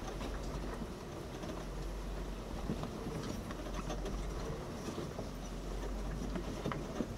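Jeep Wrangler Unlimited Rubicon engine running low and steady as it crawls over a rough, rutted trail, with a few short knocks from the vehicle working over the ground.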